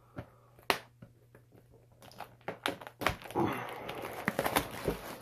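Plastic shrink wrap and packaging of a trading-card box crinkling and crackling as it is torn open and handled by hand. A few sharp clicks come first, then a denser run of crackling from about two seconds in.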